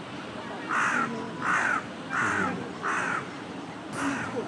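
A crow cawing over and over: five harsh caws about 0.7 s apart, starting under a second in, the last one a little fainter.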